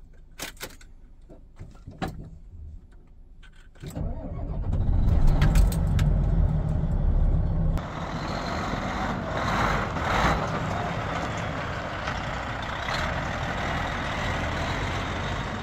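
Hyundai Trago 25-ton cargo truck's diesel engine: a few light clicks as the ignition is worked, then about four seconds in the engine starts suddenly, runs loudly for a few seconds and settles into a steady idle.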